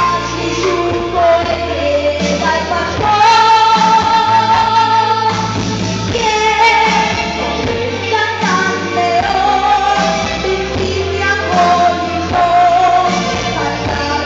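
Pop song with a sung melody over a steady bass line and backing band.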